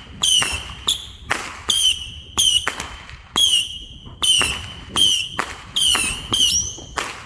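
Fireworks firing a rapid series of whistling shots, about a dozen in all: each is a sharp bang followed by a short, high whistle that dips slightly in pitch. The shots stop near the end, and the sound is very loud.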